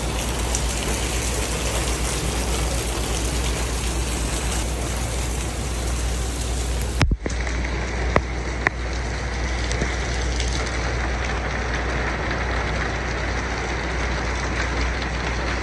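Steady heavy rain falling, an even hiss of rain on the car and pavement over a low hum. About halfway through the sound switches abruptly to a second rain recording, and a couple of sharp taps follow soon after.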